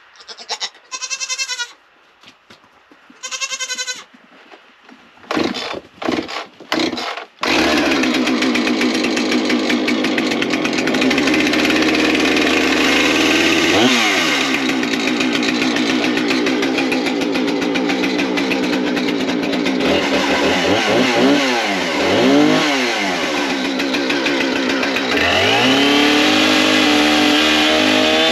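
A goat bleats twice, then a chainsaw is pull-started with a few short tugs, catches about seven seconds in and runs steadily, revving up and down several times in the second half.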